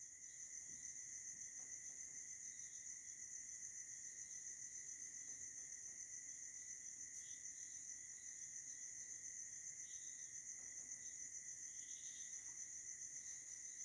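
Faint, steady, high-pitched chirring of crickets in the background. A few faint short squeaks of a marker writing on a whiteboard come in the second half.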